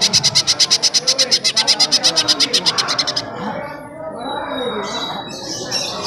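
Cucak ijo (green leafbird) singing a fast, even run of high notes, about eleven a second, that breaks off about three seconds in. After it come softer, varied bird notes over a murmur of voices.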